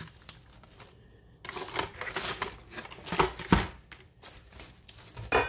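Plastic cling wrap crinkling and rustling as it is handled over a disposable aluminium foil pan. It comes in irregular crackly bursts that start about a second and a half in.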